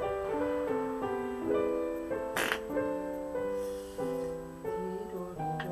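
Piano music playing, a melody of held notes, with a short burst of noise about two and a half seconds in and another brief one near the end.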